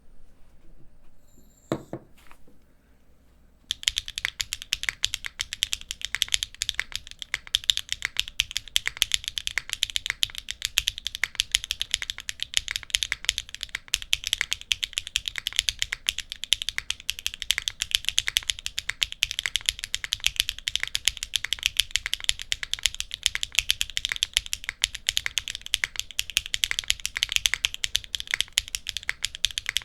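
Fast, continuous typing on a Neo65 mechanical keyboard with HMX Deep Navy linear switches, an aluminium plate, an O-ring mount and GMK keycaps: super clacky and bright. The typing starts about four seconds in, after a single low thump.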